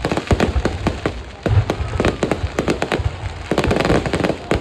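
Fireworks display: rapid, irregular bangs of aerial shells bursting, with a dense crackling barrage near the end.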